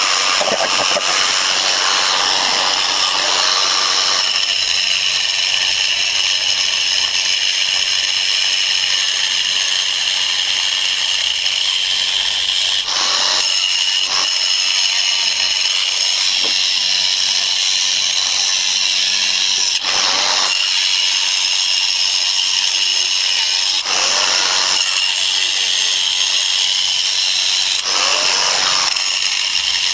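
Power tool running under load with a steady high-pitched whine, grinding or cutting, broken by a few short gaps in the second half.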